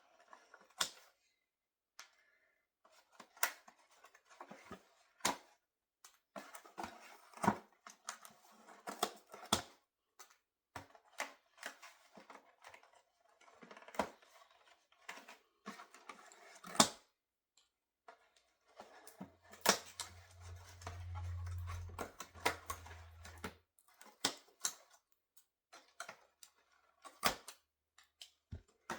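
Doll packaging being handled and opened by hand: irregular sharp clicks, snaps and crinkly rustles of plastic and cardboard. A low hum sounds for about four seconds past the middle.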